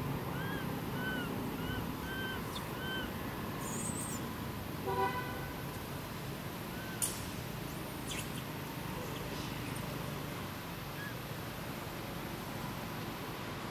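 Outdoor ambience with a steady low rumble. A run of five short, arched chirping calls sounds in the first three seconds, and a brief horn-like honk comes about five seconds in, followed by a single sharp click.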